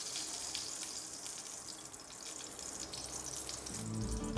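Cooking oil poured from a pourer bottle into melted ghee in a stainless steel frying pan, with a faint sizzle and light crackle as the fat heats. Background music begins to fade in near the end.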